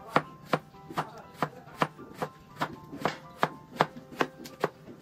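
Knife chopping a peeled potato into slices on a wooden cutting board, with steady even strokes about two and a half a second.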